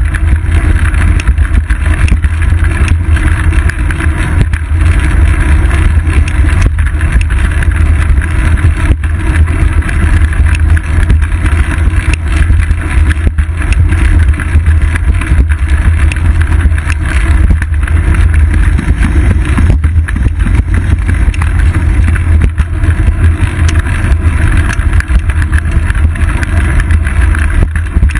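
Steady, loud low rumble of wind and ride vibration picked up by a GoPro camera mounted on the seat post of a moving bicycle, with traffic noise from the bridge roadway mixed in.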